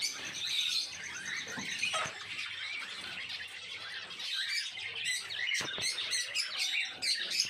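A flock of small pet birds (lovebirds, finches and cockatiels) chirping and calling over one another without a break, with a couple of sharp clicks about five and a half seconds in.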